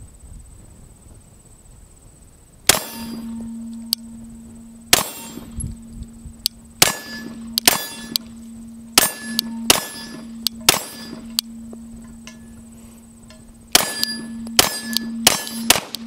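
Glock 17 9mm pistol firing about a dozen shots: one a few seconds in, then a run of roughly one shot a second, a pause, and a quicker string near the end. A low ringing tone sets in with the first shot and hangs on between shots.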